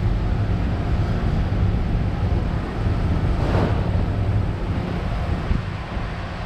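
Steady low mechanical hum with a rushing noise over it, and one brief swish about three and a half seconds in.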